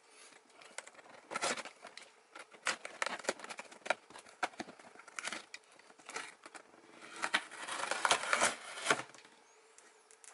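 Packing tape on a cardboard box being slit and torn open with a small metal hand tool: scattered scrapes and crackles of tape and cardboard, with a longer run of ripping about two-thirds of the way through.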